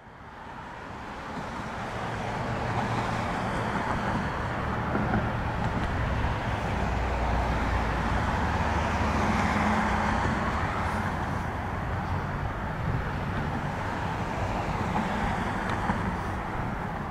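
Amtrak push-pull passenger train approaching on curved track, with a Metroliner cab car leading and an ACS-64 electric locomotive pushing: a steady rumble of wheels on rail with a low hum. The sound fades in over the first couple of seconds.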